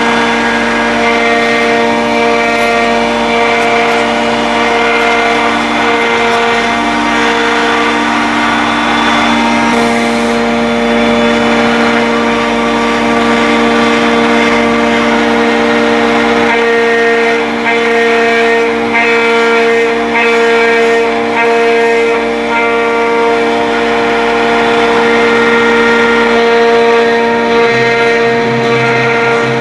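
Rotary-axis CNC router running and carving wood: a steady, loud machine whine of several held tones over a rasping cutting noise, with the tones shifting in pitch a few times as the machine's moves change.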